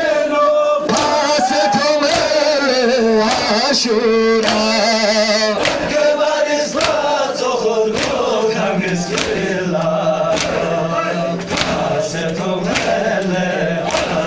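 A crowd of men chanting a Balti-language noha (Shia lament), with hands striking bare chests in matam in time with the chant, about one and a half strikes a second.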